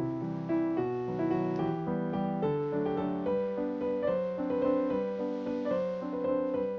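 Background music: a gentle, slow piano melody.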